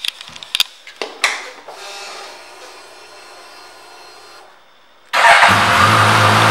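A few clicks as the ignition is switched on, then a steady electric whir of about two and a half seconds from the fuel pump priming. About five seconds in, the 2016 Suzuki GSX-S1000's inline-four engine starts and settles into a steady idle.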